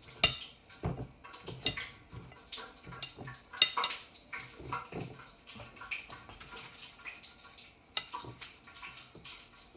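Kitchenware being handled: scattered sharp clinks and knocks with a short ring, the loudest just after the start and about three and a half seconds in, between quieter rustling handling noise.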